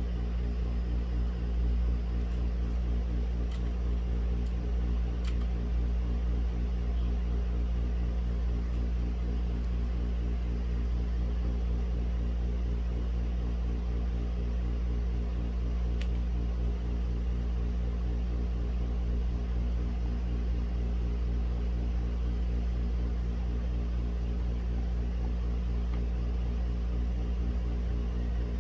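Steady low mechanical hum with a constant drone of several even tones. A few faint isolated clicks sit over it, a handful in the first few seconds and one about halfway through.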